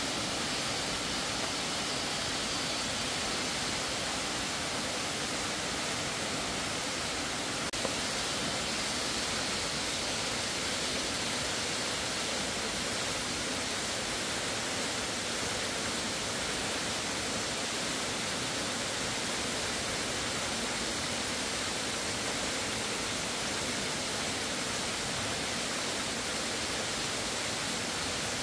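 Steady, even rushing hiss of water, with one faint click about eight seconds in.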